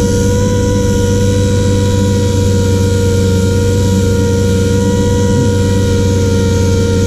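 A steady machine hum: a low mains-type drone with a constant high whine over it, unchanging throughout, like an electric motor or compressor running.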